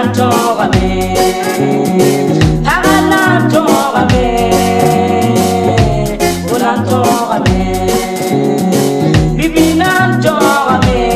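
A song: a lead vocal sings a gliding melody over a steady beat and a repeating bass line with backing instruments.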